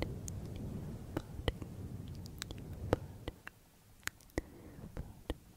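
Fingers rubbing and scratching a furry microphone windscreen, heard very close as a low rustle that fades out about three seconds in, with scattered sharp clicks throughout.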